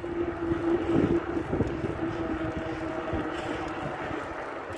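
Wind buffeting the microphone of a bicycle being ridden along an asphalt road, over a steady droning hum from the moving bike.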